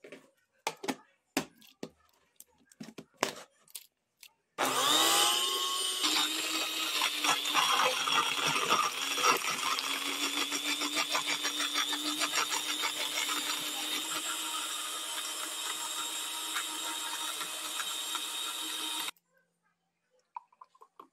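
Several plastic clicks and knocks, then a countertop blender motor starts suddenly about four seconds in and runs steadily for about fourteen seconds, blending watermelon, ground pumpkin seeds, peanuts and raisins into a smoothie, before cutting off suddenly.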